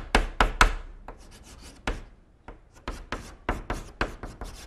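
Chalk writing on a blackboard: a quick run of sharp taps and short scratches as characters are written, a few strokes a second, with a short pause partway through.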